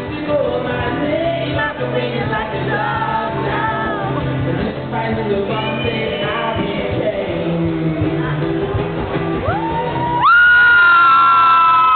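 Live rock band music with a male singer. Near the end, a loud held high note comes in abruptly and becomes the loudest sound.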